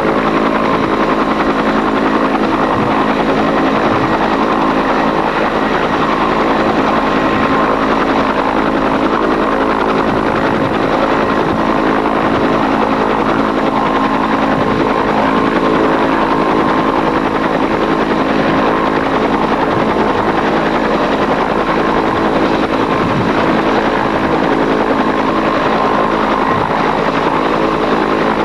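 Bell UH-1H Huey helicopter running on the ground: its Lycoming T53 turboshaft and main rotor make a steady, unchanging whine and rotor noise.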